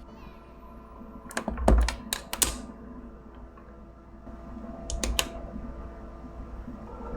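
Laptop keyboard keys clicking: a quick run of sharp clicks about a second in, then a couple more a little past the middle.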